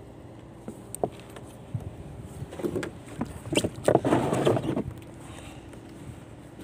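Sounds of a small styrofoam fishing boat on the water: a few sharp knocks, then a short rushing burst and a louder one about four seconds in, over a faint steady hum.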